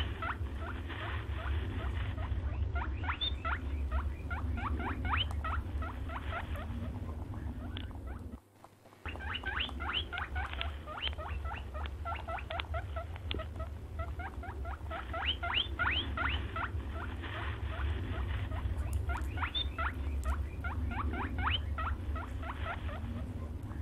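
Hare squeaking in rapid series of short, high, upward-sweeping squeaks, several a second, over a steady low rumble, with a short break about eight and a half seconds in.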